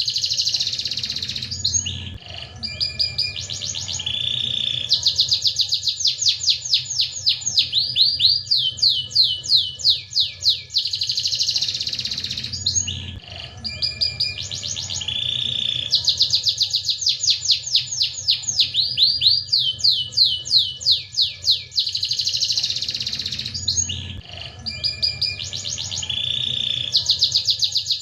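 Domestic canary singing in full voice: long runs of rapid, repeated down-slurred notes and rolling trills, broken by short pauses. The same song pattern comes round again about every twelve seconds.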